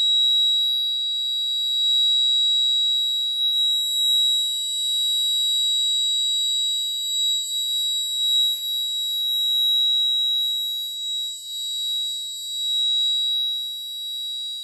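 Alarm buzzer on the railway crack-detection robot sounding one continuous high-pitched tone: the crack alert after the IR sensor has found a break in the track.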